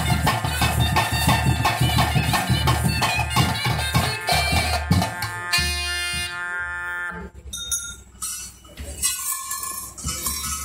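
Traditional nema ritual music with fast, steady drumming and a wind instrument. About five seconds in the drumming stops and the wind instrument holds one long note, then the music carries on quieter and sparser.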